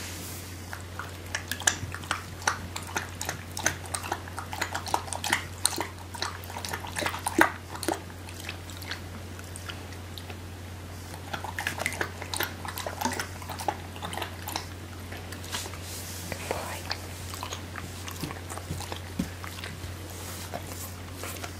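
Eight-week-old Alaskan Malamute puppy with the hiccups: a string of small, irregular clicks and smacks from its mouth and throat, coming in clusters.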